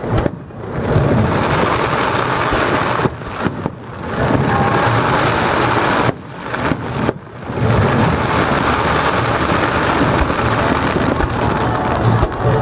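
Fireworks display: a dense, continuous barrage of bangs and crackle, with short lulls about three and six seconds in.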